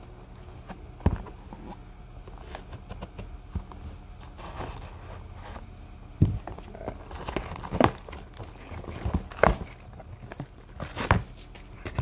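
Cardboard packaging handled and opened by hand: rustling and scraping of cardboard, with a few sharp knocks and taps as the box is set against the table, the loudest about six seconds in and again near the end.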